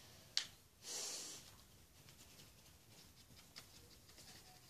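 Quiet room with faint handling: a sharp click about half a second in, then a short breath about a second in, then a few faint ticks.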